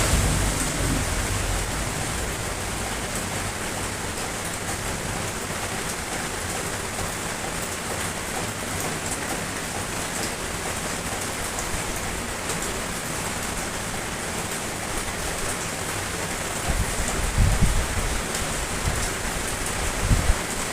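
Steady rain falling, an even hiss of drops, with a few brief low rumbles near the end.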